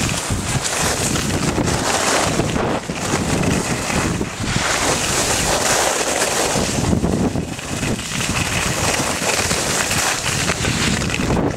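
Wind buffeting a helmet-mounted camera's microphone during a downhill ski run, a heavy rumbling rush, with the hiss of skis scraping over hard-packed snow swelling every few seconds through the turns.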